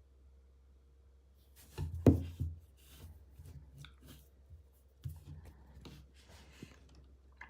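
Hands handling a power bank and its packaging: irregular rubbing, rustling and small knocks, with a sharp knock about two seconds in and another cluster about five seconds in, over a low steady hum.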